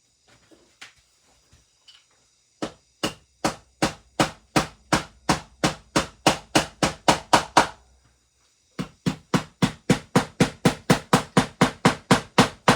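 Hammer tapping small picture-hanging hooks in, striking in quick, even runs of about three blows a second. A few light taps come first, then a long run of blows, a short pause, and a second run that is slightly faster.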